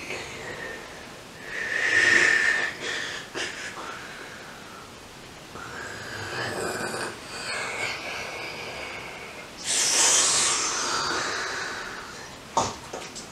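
A person breathing loudly in three long, hissing breaths, the first and last the loudest. A sharp click comes near the end.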